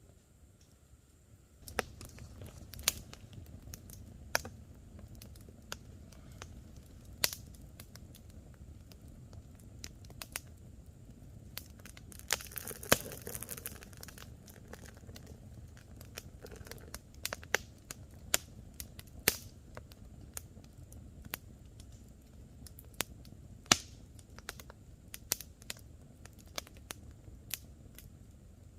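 Wood campfire crackling: irregular sharp snaps and pops of burning wood over a low rumble of flames, with a short burst of hissing about twelve seconds in.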